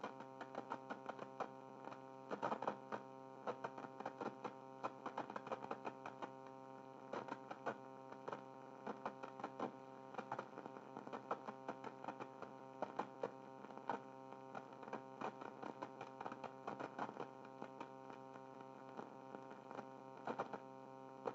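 Irregular clicks of a program being typed in, several a second, over a steady electrical hum. The sound is thin and low-fidelity, with nothing in the highs, as it comes from the TRS-80 Model I's low-rate mono video playback.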